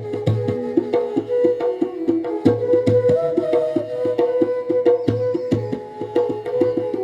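Indian instrumental music: a melodic instrument playing held and moving notes over a steady drone, with a tabla keeping a regular beat.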